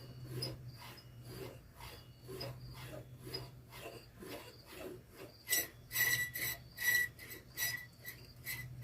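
Old radio's tuning knob being turned back and forth, the dial mechanism and dial string giving repeated short rasping, rubbing strokes over a steady low hum. The strokes get sharper and brighter a little past halfway.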